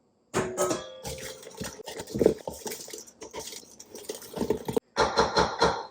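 Dry ingredients being added to a bowl of cake batter and mixed in, with a utensil knocking and scraping against the mixing bowl.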